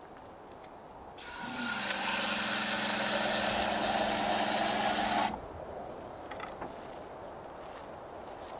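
Water spraying from a hand-held sprayer into a container, with an electric water pump humming steadily beneath it; both start about a second in and cut off suddenly about four seconds later.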